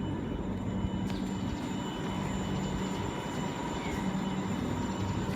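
Steady machinery hum with several constant tones.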